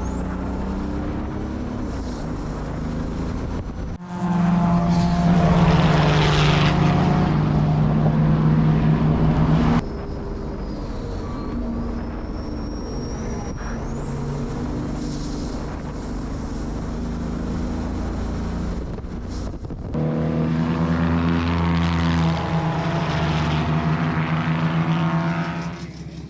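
Nissan RD28 2.8-litre straight-six turbo diesel in an S13 Silvia race car, running across several cut-together clips. It runs steadily, then louder and fuller from about 4 to 10 seconds in and again from about 20 seconds in, with abrupt changes at each cut. A faint high whistle rises and falls above it.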